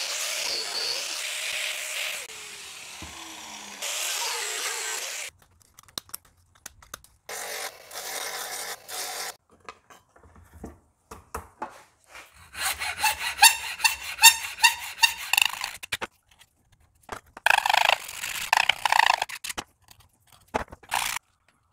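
Handheld angle grinder running, its disc spinning down with a falling whine about two seconds in, then running again for a second or so. Then come separate bursts of rapid, rhythmic hand-tool strokes scraping on a metal plate clamped in a steel bench vise, the loudest two runs of strokes in the second half.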